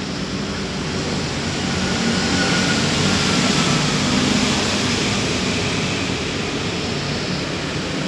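Half-horsepower LG S05LFG-2 split air-conditioner outdoor unit running: a steady rush of air from the condenser fan over a low hum, getting a little louder about two seconds in.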